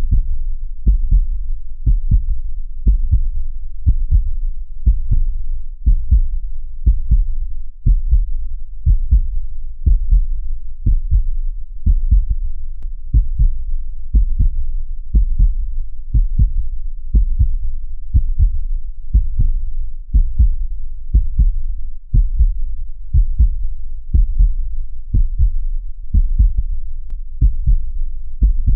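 Steady heartbeat: an even run of low, deep thumps, about one beat a second.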